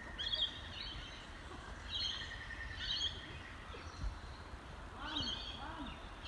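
Birds calling: short chirping phrases repeating every second or two, over low wind rumble on the microphone.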